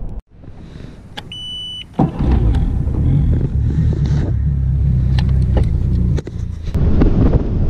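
Jon boat's outboard motor, worked from a console throttle: a short electronic beep, then about two seconds in the motor comes on loud and runs steadily, dipping briefly near six seconds.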